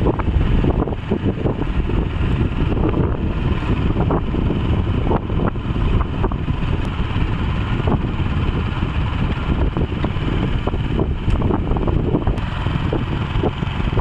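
Loud, steady low rumble of wind buffeting the microphone, with a motor vehicle's engine running underneath.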